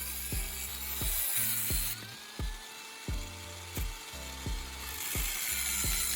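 Background music with a steady beat: a low kick drum about twice a second over held bass notes.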